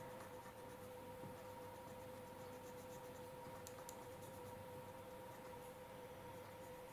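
Coloured pencil shading on drawing paper: faint scratching strokes, over a steady faint hum.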